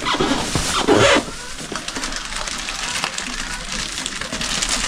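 Plastic packaging being pulled and crinkled by hand while trying to open it, with a louder burst about a second in.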